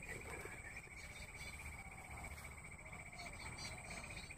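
A steady, fast-pulsing insect trill, cricket-like, runs throughout, with a thin high-pitched insect whine above it. A few faint, short bird calls sound behind it over a low background rumble.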